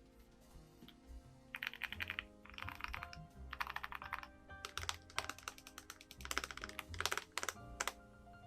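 Typing on a Zuoya GMK67 keyboard with Krytox-lubed Holy Tom V2 switches, PC plate, case and switch foams and double-shot ABS keycaps: from about a second and a half in, bursts of fast keystrokes with a marbly clack. Background music plays underneath.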